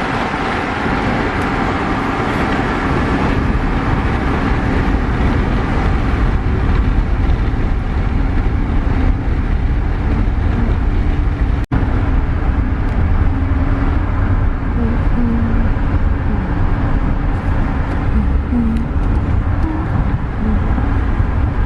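Steady rumble of a motor vehicle on the road, with continuous engine and tyre noise.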